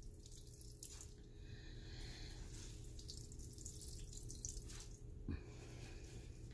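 Zucchini juice trickling and dripping faintly into a ceramic bowl as salted, shredded zucchini is wrung out in a towel, with a soft knock about five seconds in.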